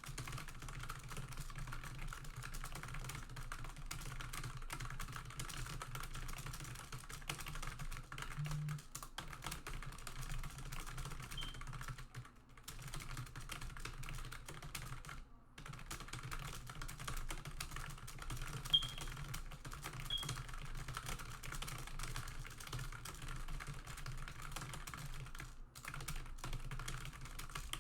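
Computer keyboard typed on at very high speed, about 200 words a minute, in a dense unbroken stream of keystrokes with a few brief pauses.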